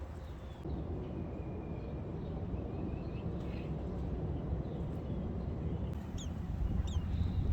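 A few faint, short, high chirps from small birds, several sharp downward ones near the end, over a steady low rumble.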